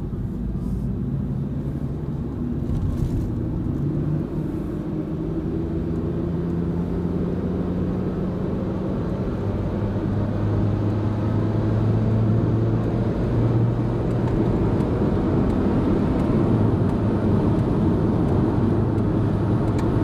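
Car engine and tyre noise heard from inside the cabin as the car accelerates onto an expressway. The engine note climbs, drops once about halfway through as the car shifts up, then climbs again, while the road noise grows slowly louder.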